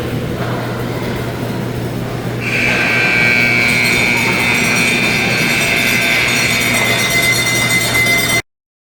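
Hockey arena horn sounding one long steady blast of about six seconds, starting about two and a half seconds in, over the rink's background noise; it marks the end of the period. The sound cuts off abruptly near the end.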